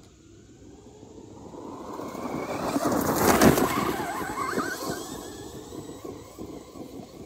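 Traxxas Hoss RC monster truck driving past at speed, its brushless electric motor whining and its tyres tearing through dirt. It gets louder as it approaches, is loudest about three and a half seconds in, then fades away, with loose dirt and debris kicked up as it goes by.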